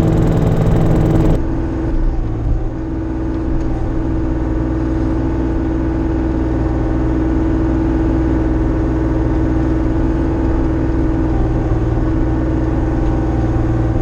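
Diesel engine of a Bobcat compact machine running steadily under work. Its sound shifts abruptly about a second and a half in, then holds an even pitch.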